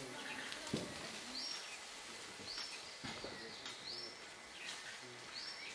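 A bird calling repeatedly: a short whistled note that rises and then holds high, every second or so. Two dull knocks stand out, the louder about a second in and another about three seconds in.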